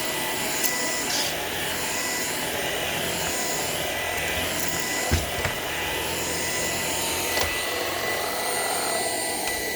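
Shark PowerDetect vacuum cleaner running steadily with a motor whine, with a few light knocks along the way.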